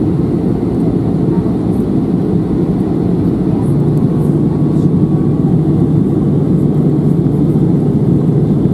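Airbus A320-214's CFM56-5B jet engines and the rush of air over the airframe, heard inside the passenger cabin as a loud, steady low roar. A low steady hum in it grows stronger about three and a half seconds in.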